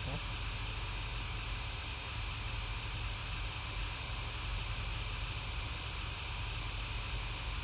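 Steady hiss with a faint low hum underneath, unchanging throughout, with no distinct events.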